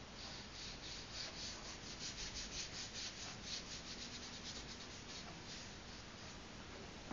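Bristles of a cheap watercolour brush dragging acrylic paint across photocopy paper in short, scratchy strokes, about four or five a second, thinning out after about four seconds.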